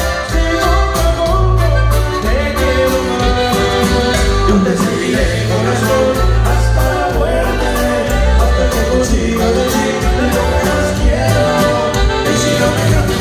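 Live norteño band playing, with singing, a strong bass line and a steady drum beat.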